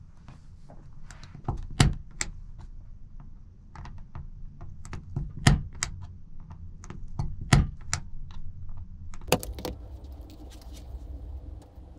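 Spring-loaded impact punch-down tool snapping as it punches conductors down into a plastic keystone jack: a sharp snap every second or two, with quieter clicks and handling of the jack between, and a close double click about nine seconds in.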